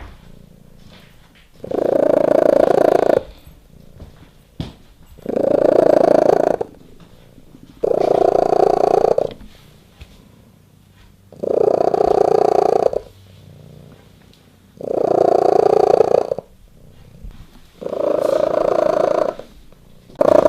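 Domestic cat purring very loudly, in long rhythmic swells about every three and a half seconds with quieter stretches between them, close to the microphone.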